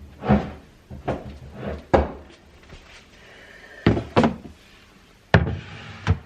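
Pantry items such as jars, tins and packets being set down and shifted on shelves: a series of separate knocks and thunks, about eight in all, with short gaps between.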